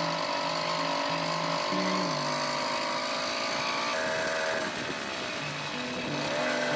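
Firestorm 80 two-stroke motorized-bicycle engine running on the road, its pitch dipping and rising again about four to five seconds in.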